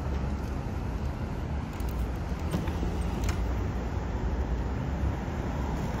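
Steady rumble of passing road traffic, with a couple of faint clicks around the middle.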